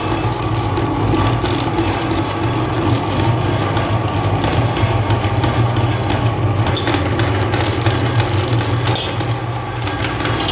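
Electric meat grinder running steadily, its motor humming while the auger crushes and grinds chocolate candy bars with a continuous crackling.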